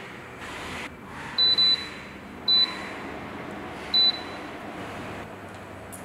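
Tower air cooler fan running with a steady rush of air, while its control panel beeps four times: two quick beeps about a second and a half in, then single beeps near two and a half and four seconds, each beep acknowledging a button press or setting change.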